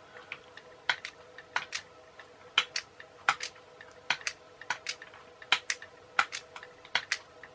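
Toy RC car steering unit being worked: its small motor turns the peg on its shaft against the peg on the steering link rod, snapping the steering to one side and back, with sharp plastic clicks, often in pairs, about one every second.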